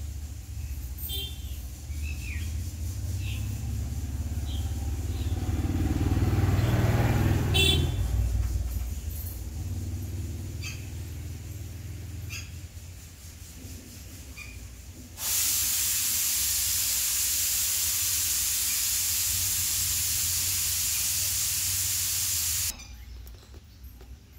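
A low engine-like rumble swells and fades over the first eight seconds, with a few faint short chirps. About fifteen seconds in, a loud steady hiss starts suddenly and cuts off about seven seconds later.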